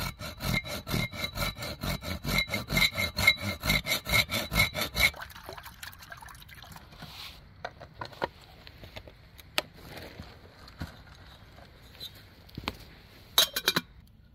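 Bow saw cutting through a stick with quick, even back-and-forth strokes, about four or five a second, stopping about five seconds in. Then water is poured from a plastic jug into a small metal pot, with a few scattered knocks, and near the end there is a quick run of sharp clinks as the metal kettle is handled.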